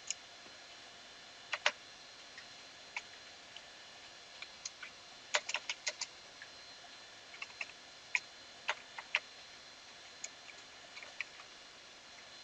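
Computer keyboard typing: scattered single keystrokes and short quick runs of keys with pauses between, over a faint steady hiss.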